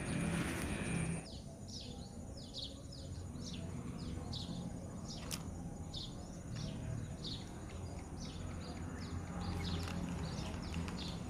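A bird chirping over and over, short falling high notes at about two a second, over a steady low rumble. A short burst of noise comes first, and a single sharp click sounds midway.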